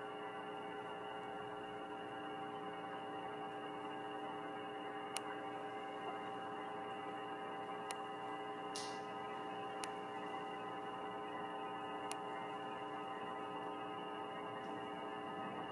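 Steady electrical hum made of several held tones, with a few faint clicks and a brief hiss about nine seconds in.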